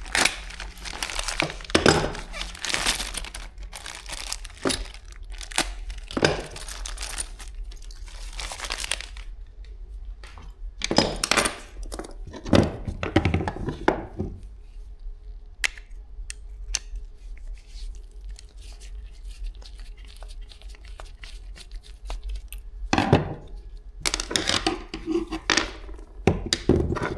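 Plastic packaging crinkling and rustling as it is handled and opened, in several bursts of a few seconds each with quieter pauses between.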